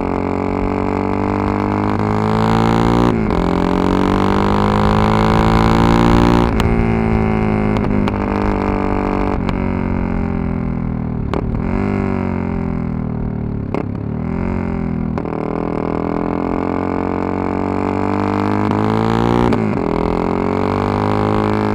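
Yamaha MT-03 660's single-cylinder engine and exhaust under way, its note climbing with the revs, then dropping sharply and recovering several times as the throttle closes and reopens and gears change.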